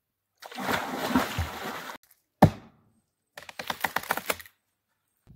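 Water splashing for about a second and a half, then cut off abruptly. A single heavy axe blow into a log follows, and about a second later a quick run of sharp knocks and cracks from axe chopping.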